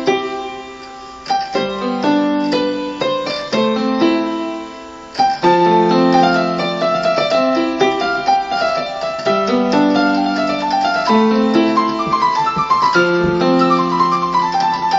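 Electronic home keyboard played with both hands on a piano voice: sustained chords under a melody. After a short lull about five seconds in, the playing turns louder and fuller.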